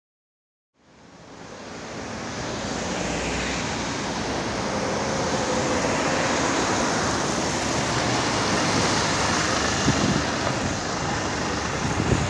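Street traffic on a wet road, fading in about a second in: a steady hiss of tyres and engines as a PAZ-320405-04 Vector Next minibus approaches and pulls up alongside the kerb. A few low thumps come near the end.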